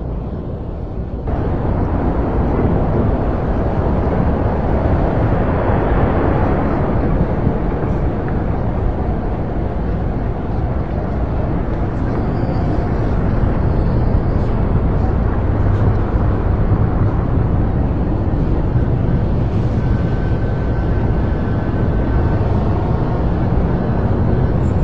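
City ambience: a dense, steady rumble of traffic noise that steps up louder about a second in.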